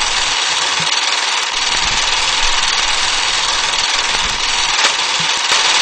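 Old film projector sound effect: a steady whirring hiss with scattered soft pops and crackles at uneven intervals.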